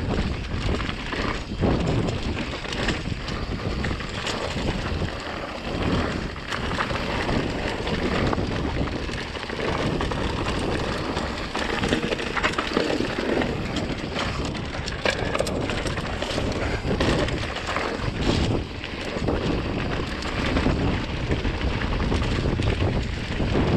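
Mountain bike rolling fast down a dirt trail covered in dry leaves: a steady rush of tyre noise with frequent small knocks and rattles from the bike over the bumps, under heavy wind noise on the microphone.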